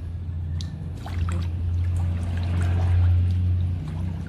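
Swimming-pool water sloshing and trickling as people move in it, over a steady low rumble that is loudest in the middle.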